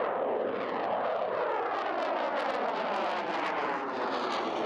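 HAL Tejas delta-wing jet fighters flying over in formation: continuous jet engine noise, its pitch sliding downward as they pass.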